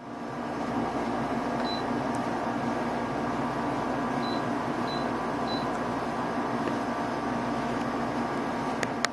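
Nakatomi MAC-20 portable air conditioner running in dehumidify mode, a steady fan-and-compressor whir with a low hum. Four short faint high beeps come in the middle, and a few sharp clicks come near the end.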